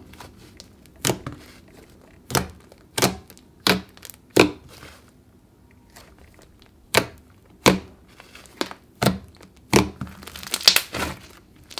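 Puffy pink clay slime being squeezed, poked and stretched by hand, giving sharp pops and clicks roughly once a second, with a quiet stretch in the middle and a burst of fast crackling near the end.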